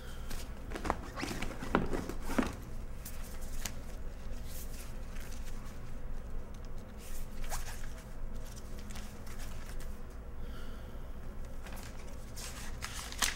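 Rustling, crinkling and small clicks of belongings being handled and rummaged through as a hand-luggage bag is searched. The noises are scattered and come in small clusters, busiest near the start and again near the end.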